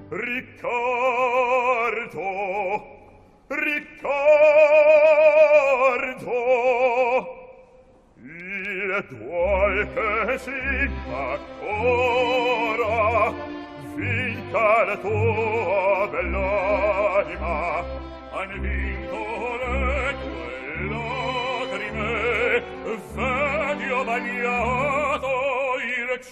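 Male opera singer singing a slow lyrical line with strong vibrato, accompanied by orchestra. After a short break about eight seconds in, the orchestra's low notes pulse steadily beneath the voice.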